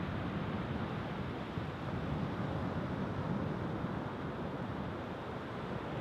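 Rough sea surf breaking on a sandy beach: a steady rush of waves and wind.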